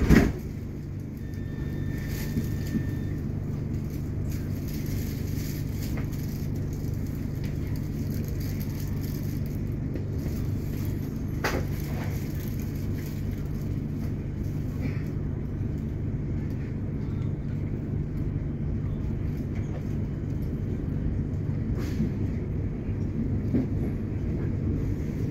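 Inside the carriage of a Melbourne Metro suburban electric train on the move: a steady low rumble and hum of the train running on the track. A sharp knock comes right at the start, and a brief high steady tone sounds about two seconds in.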